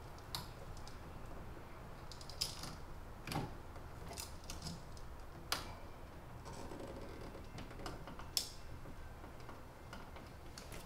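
Small clicks and scrapes from handling an electrical receptacle and bending its wires onto the terminals, scattered irregularly, with a few sharper clicks, over a low steady hum.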